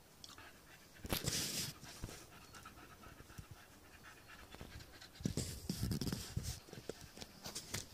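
A dog panting in short rapid breaths, in two spells: about a second in, and again from about five seconds in for a second or so.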